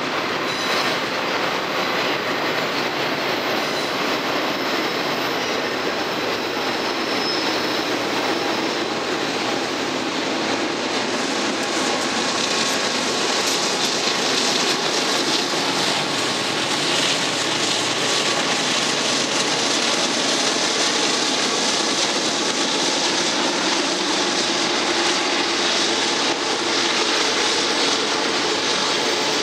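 Freight train cars rolling past: a steady noise of steel wheels on rail, with faint high wheel squeal in the first several seconds.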